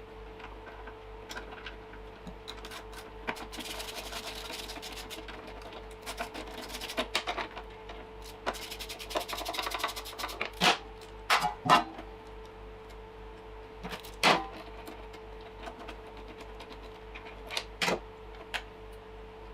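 Hand tools and parts being handled while the carburetor is taken off a small Briggs & Stratton mower engine: scraping and rustling, with several sharp clicks and knocks around the middle, over a steady hum.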